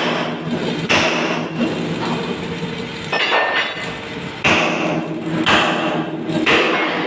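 Hammer blows on the metal of a backhoe bucket during repair: about six strikes, irregularly spaced roughly a second apart, each ringing briefly.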